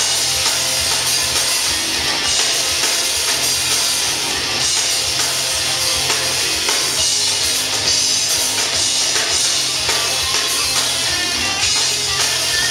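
Instrumental hard rock from a power trio: electric guitar over bass guitar and a drum kit playing steadily.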